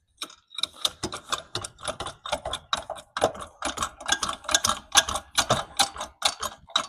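Hydraulic jack being pumped by its handle to raise the car: a quick, uneven run of metallic clicks and clanks, several a second.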